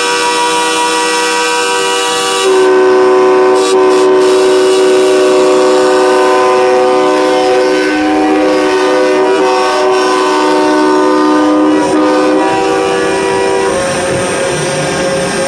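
Several vehicle horns, the deep air-horn type of large trucks, held down together as a loud chord of steady overlapping tones. The chord swells louder about two and a half seconds in, and some horns drop out or change pitch near the end.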